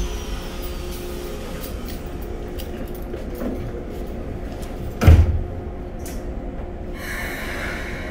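Keikyu 1000-series electric train standing at a station: a sliding door closes with a single heavy thump about five seconds in, and a short hiss of air follows a couple of seconds later, over a steady low rumble.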